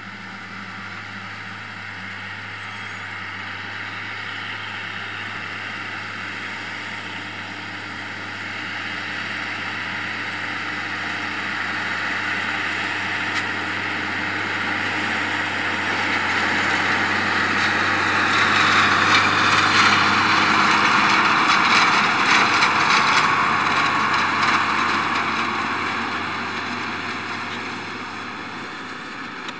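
Fendt 930 TMS tractor's six-cylinder diesel running under load while pulling a Krone ZX470 loader wagon that picks up cut grass. It grows louder as the rig comes closer, is loudest about two-thirds of the way through, then fades as it moves away.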